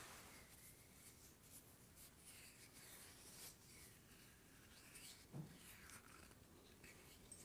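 Faint, scratchy rubbing sounds that come and go, with a soft low thud about five seconds in.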